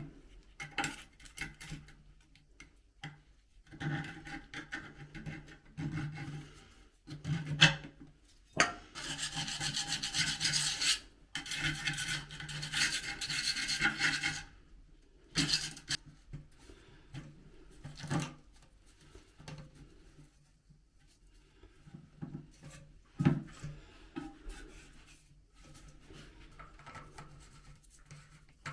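Stanley knife blade scraping a hard-water limescale crust off toilet flush parts, in repeated stop-start rasping strokes with a few sharp clicks, the longest run of scraping about halfway through.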